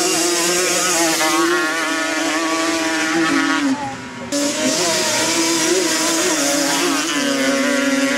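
Two-stroke sport quads, Yamaha Banshee type, racing at full throttle. The engines are revving hard with a high wail whose pitch climbs and drops back several times. The sound dips briefly about four seconds in.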